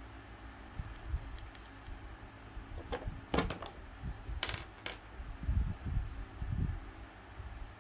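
Hard plastic model-kit parts and tools clicking and clattering as they are handled on a desk: a quick run of sharp clicks a few seconds in and a short scrape, with soft handling thumps underneath.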